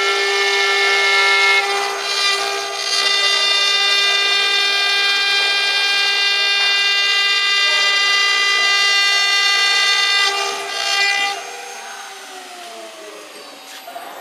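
The 1.5 kW spindle of a JCUT-1212 CNC wood router gives a steady high-pitched whine at running speed while it engraves the board. About eleven seconds in it spins down, and the whine falls in pitch and fades.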